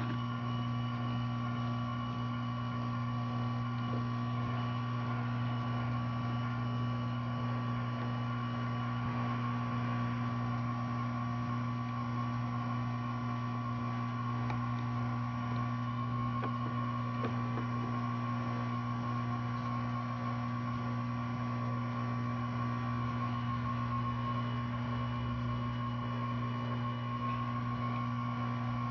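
Steady electrical hum from bench electronics, with a thin higher whine above it, unchanging throughout.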